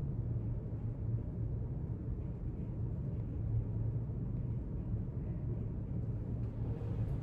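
Steady low hum and rumble of a library's room tone, unchanging throughout.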